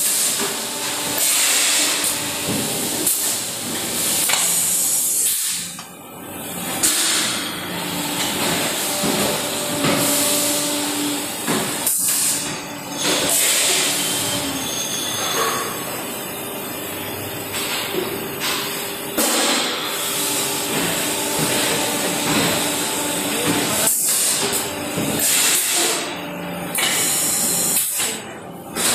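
Sunbun SK 140T servo-motor plastic injection molding machine running its paint-bucket molding cycle: a steady mechanical hum with faint tones, broken several times by loud bursts of hissing air.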